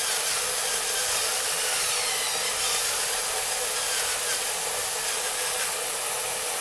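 Pepper mill grinding black peppercorns, a steady grinding.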